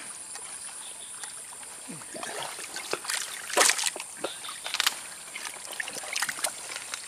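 Hands groping and splashing in shallow muddy ditch water: irregular splashes and sloshes, the loudest about three and a half and five seconds in.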